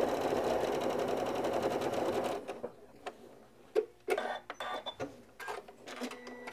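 Sewing machine stitching steadily through several layers of quilt fabric and batting, stopping about two and a half seconds in. After that, a few short clicks and rustles as the quilt is moved.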